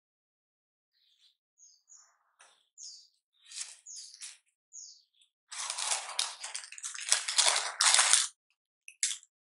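Parchment paper lining a small paper box crinkling loudly for about three seconds, midway through, as a toasted brioche sandwich is pushed down into it, with a brief crinkle again near the end. Before that there are only a few faint, short high ticks and rustles.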